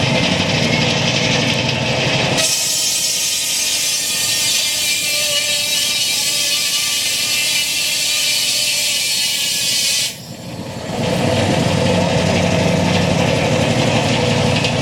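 Belt-driven sawmill and its Fowler steam traction engine running. About two seconds in, the sound switches abruptly to a loud high hiss for some eight seconds. It then drops out briefly before the lower machine running returns.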